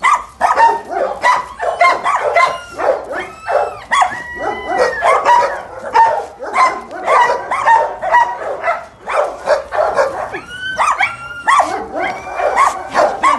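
Dogs barking over one another without a break, with high yips and whines mixed in among the barks now and then.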